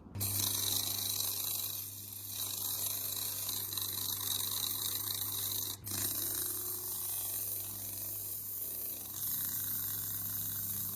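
Steady hiss of a powered spray over a low, even motor hum, breaking off for a moment about halfway through.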